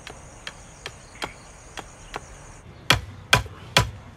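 Blows of a tool on wood in a steady rhythm, about two a second, light at first and much louder from about three seconds in, typical of work on a wooden spinning top. A high, steady buzz of crickets or other insects runs behind the first blows and stops about two and a half seconds in.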